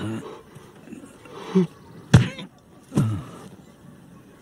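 Short grunts and groans from men, with one sharp thud about two seconds in, a blow to the head with a gold statuette, followed by a falling groan.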